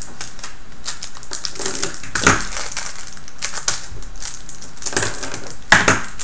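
Small robot-kit parts clicking and knocking against a wooden tabletop as they are picked up, handled and set down, with the loudest knocks about two seconds in and near the end. A steady hiss runs underneath.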